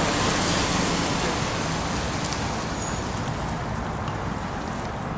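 Steady background traffic noise, easing off slightly, with a few light high clicks from about two seconds in.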